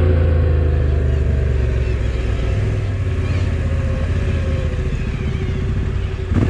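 Motorcycle engine running steadily at low revs as the bike rolls slowly, its note easing down slightly, with a sharp click near the end.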